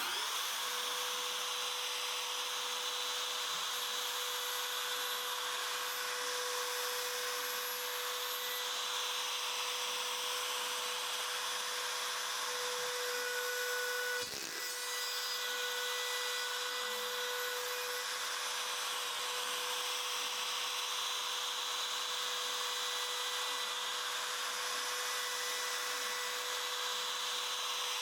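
X Shaper Plus CNC router spindle running at high speed with a steady high whine and hiss as its bit cuts acrylic, with a brief dip about halfway through.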